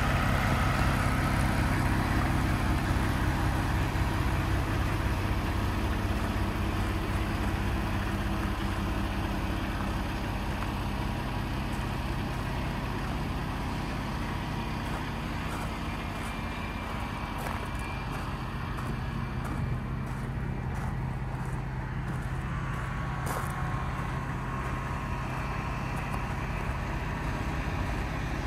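Heavy-truck diesel engine, the PACCAR MX-13 of a 2018 Kenworth T680, idling steadily. It is a little quieter in the middle stretch.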